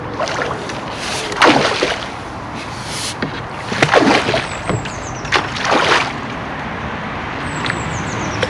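Hooked carp splashing and thrashing at the water's surface as it is played in close to the bank. There are several bursts of splashing, the loudest about a second and a half in and again around four and six seconds in.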